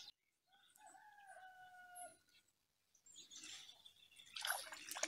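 A rooster crowing, one faint call held at a steady pitch for just over a second. A short burst of rustling noise follows near the end.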